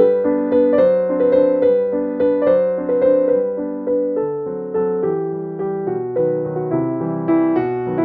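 Background piano music, a steady run of single notes with no other sound above it.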